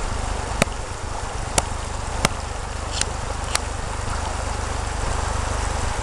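Steady rushing noise of shallow river water running over gravel, with a low rumble underneath, broken by five sharp clicks in the first four seconds.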